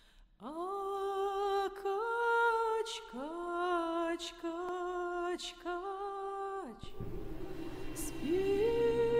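A woman's solo voice singing a slow lullaby without accompaniment, holding long notes that each slide up into pitch. About seven seconds in, a low steady drone with a hiss comes in under the singing.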